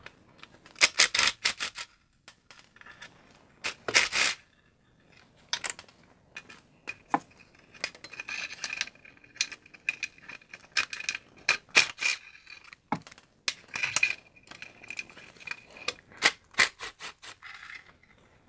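Ratchet and socket loosening oil pan bolts: irregular metal clicks and clinks, with several short runs of rapid ratchet clicking.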